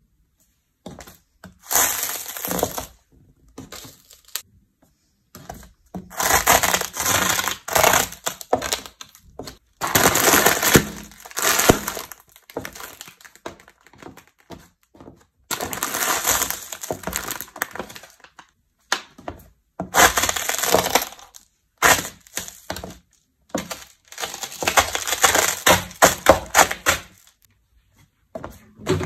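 Dry snack food and plastic snack packets being crushed under a shoe heel. It comes as repeated crunching and crackling in separate bursts of one to a few seconds, with silent gaps between them.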